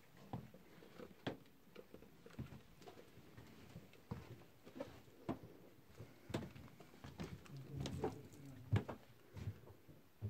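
Footsteps on a hard floor, irregular sharp steps a half-second to a second apart, echoing in a small concrete tunnel.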